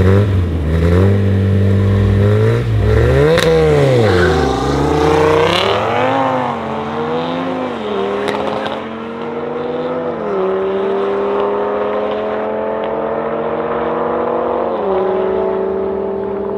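Two modified cars drag racing. The engines are revved hard and unevenly at the start line, then launch at about four seconds in and accelerate away. Each rising engine note drops sharply at every upshift, and the sound fades and loses its brightness as the cars pull into the distance.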